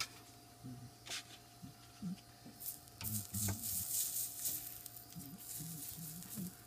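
A rag wiping the freshly soldered joint between a copper pipe and a brass valve, a scrubbing noise from about two and a half to four and a half seconds in, after a couple of sharp clicks.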